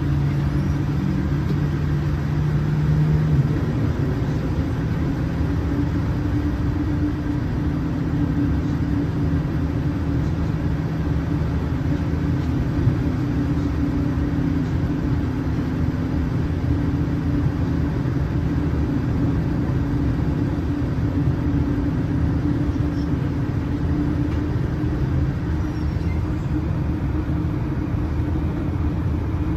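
Boeing 787-9's GEnx-1B turbofan engines heard from inside the cabin, a loud steady drone. A low tone drops away about three seconds in and a higher hum takes over and holds from about five seconds on.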